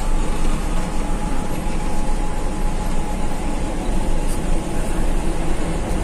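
Mitsubishi-engined intercity bus running along the road: steady engine and road noise, with a faint steady whine over it.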